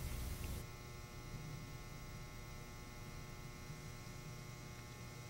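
Faint steady electrical mains hum with a light hiss.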